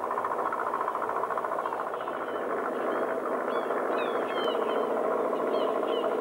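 Engine running with a steady drone, as from a vessel under way. A few faint short high chirps sound over it in the second half, with one sharp click near the middle.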